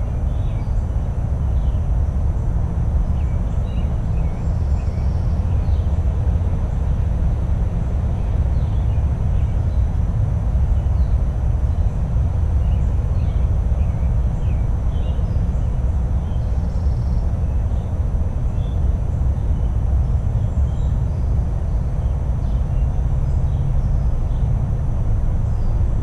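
Faint, scattered chirps of small birds over a loud, steady low rumble, with a thin, steady high tone throughout.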